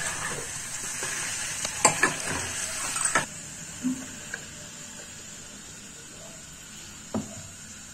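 A spoon scraping and scooping potato-and-pea curry out of a kadai onto a ceramic plate. A few sharp clinks of the spoon against pan and plate come in the first four seconds, with one more near the end.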